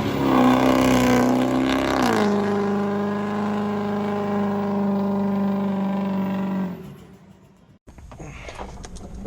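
A motor or engine running steadily at a high speed. It drops to a lower steady pitch about two seconds in, then winds down and stops near the end.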